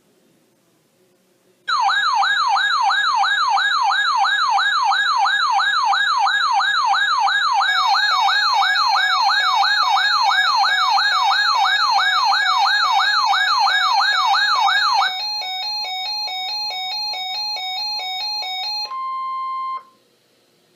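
Electronic siren-style alert tone warbling rapidly up and down several times a second, with a second tone layered on partway through; it then switches to a stepped hi-lo alternating tone and ends in about a second of a steady single tone before cutting off.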